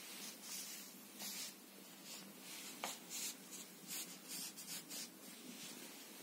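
Glossy paper magazines rustling and scraping under a cat's paws and nose, in a series of short, irregular rustles, with one sharp click about three seconds in.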